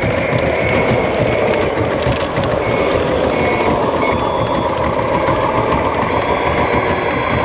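RC model wheel loader's sound module playing a reversing alarm, short high beeps repeating over a steady diesel engine rumble, as the loader backs up.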